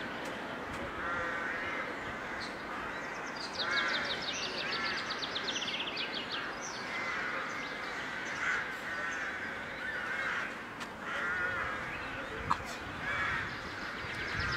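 Crows cawing over and over, a harsh caw about every second, with a rapid high rattling call about four seconds in.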